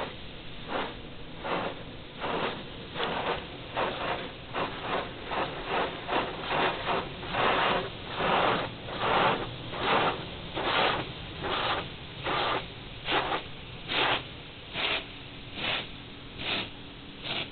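Touch-free automatic car wash's high-pressure water jets sweeping across the car, heard from inside the cabin as rhythmic swishing pulses about two a second, loudest in the middle.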